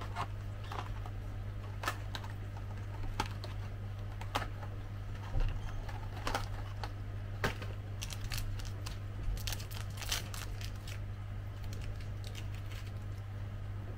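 A small cardboard box of sweets being opened and its contents handled: scattered light clicks and rustles, busiest a little past the middle, over a steady low hum.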